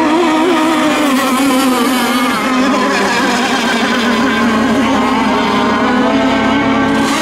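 Radio-controlled racing boats running at speed: a steady, high-pitched engine buzz that wavers slightly in pitch.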